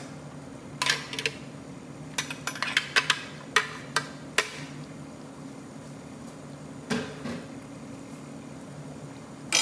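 A utensil knocking and clinking against a ceramic-coated cooking pot, a dozen or so sharp taps in small clusters with pauses between, over a steady low hum.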